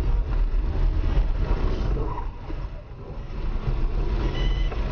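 Steady low rumble of road vehicles picked up by a dashcam, with a brief high-pitched beep near the end.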